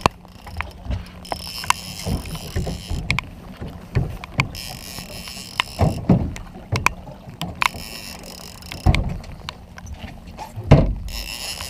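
Conventional fishing reel being cranked in short spells of whirring while a fish is fought on a bent rod, with scattered clicks. Loud low thumps come about six and nine seconds in, and the loudest near the end, over a steady low hum.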